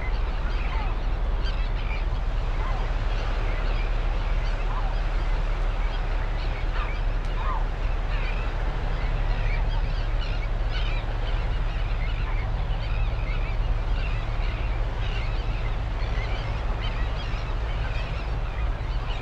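Birds calling and chirping, many short calls scattered throughout, over a steady low rumble.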